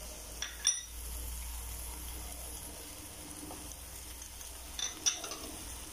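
Chicken pieces sizzling as they fry in a steel pot, a steady crackling hiss. Sharp clicks come about half a second in and again about five seconds in.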